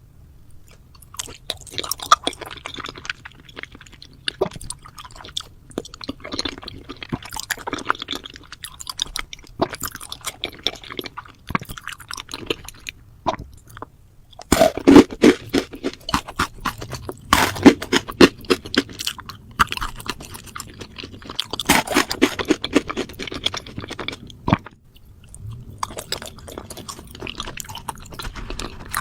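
Close-miked chewing and crunching of food with dense crackly clicks. It grows much louder for about ten seconds in the middle, then eases off.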